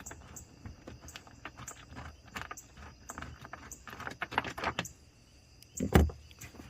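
Irregular small clicks, taps and rattles of hands and tools working on bolts and parts in a jet ski's engine bay, with a loud knock about six seconds in.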